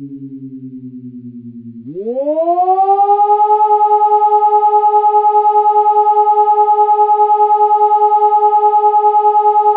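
SiRcom SiBT electronic warning siren giving the German fire-alarm signal (Feueralarm): the low tone of one of the signal's two interruptions slides downward, then about two seconds in it rises quickly back up and holds a loud, steady tone.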